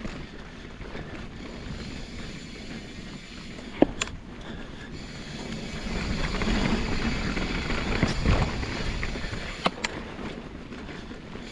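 Mountain bike rolling along a dirt singletrack trail: a steady rush of tyre and wind noise that swells from about halfway through, with a few sharp knocks and clicks from the bike over bumps.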